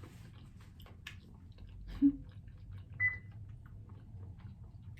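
A person chewing food close to the microphone, with faint wet mouth clicks. There is a short low sound about two seconds in and a brief high tone about three seconds in.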